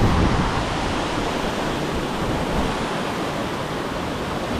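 Steady rushing of water spilling over a low dam's spillway, an even roar with no distinct events.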